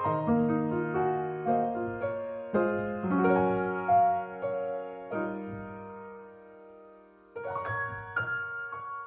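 Background piano music: slow, gentle chords and melody notes, one chord left to fade out before the playing picks up again about seven seconds in.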